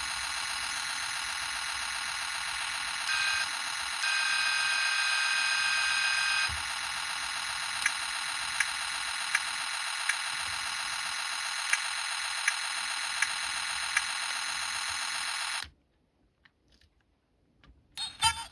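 Electronic sound effect from a toy patrol car's replacement microcontroller sound board, played through the toy's tiny speaker: a steady, buzzy, thin tone. Extra tones join briefly about three seconds in and again from about four to six and a half seconds. Faint regular clicks come a little more than once a second in the second half, then the sound cuts off suddenly near the end.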